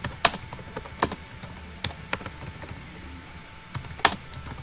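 Computer keyboard being typed on: separate key strikes at an uneven pace, with two louder strikes, one just after the start and one about four seconds in.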